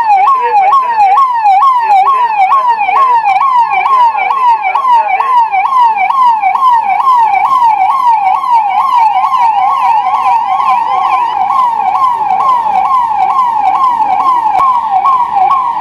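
Ambulance siren wailing in a fast, steady up-and-down sweep, about two to three cycles a second.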